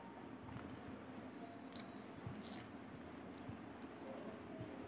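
Faint chewing of rice and pork curry eaten by hand, with a few soft clicks as fingers gather rice on a steel plate.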